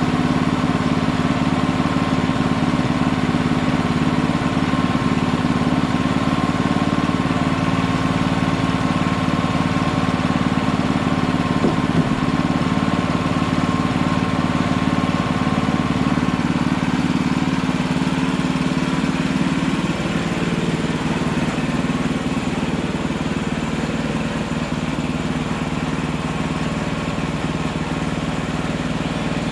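Hudson Hunter portable sawmill's engine running steadily, its tone shifting and thinning a little between about sixteen and twenty seconds in.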